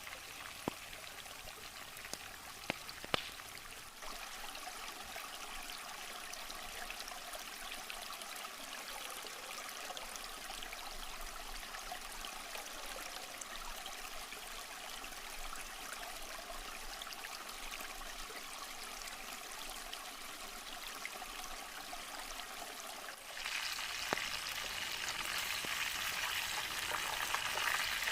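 Steady running water, like a small forest stream, with a few sharp clicks in the first few seconds. About five seconds before the end a louder, hissing sizzle of food frying in hot oil starts up and continues.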